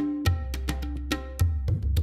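Intro music: sharp wood-block-like percussion hits over a deep sustained bass.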